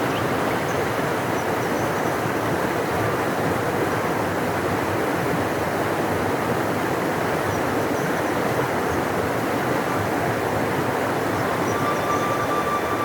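Large river rushing steadily, a deep even roar of water, with a few faint high bird chirps above it.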